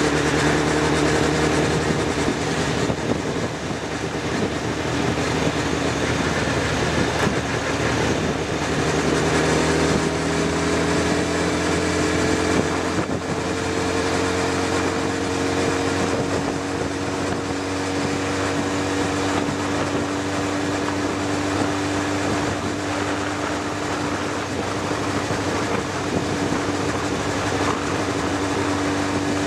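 Engine of the vehicle carrying the camera, running steadily at cruising speed under heavy wind and road rush. The engine note holds level, then shifts slightly about halfway through.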